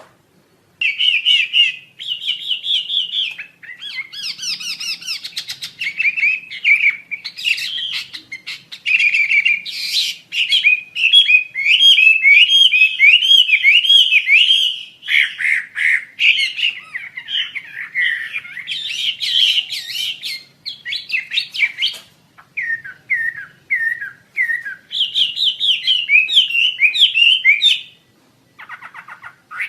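Wambi Asia songbird singing: rapid, varied strings of high chirps and whistled notes in phrases of a few seconds, with brief pauses between them.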